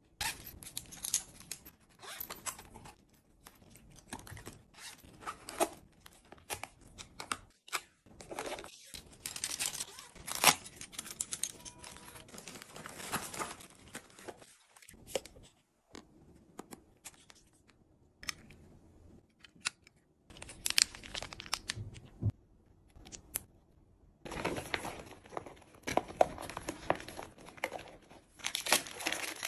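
Close-up rustling and crinkling of plastic packaging and cosmetic items being handled, in irregular clusters with sharp clicks and taps. Near the end, a clear plastic cosmetic pouch crinkles as skincare jars and bottles are packed into it.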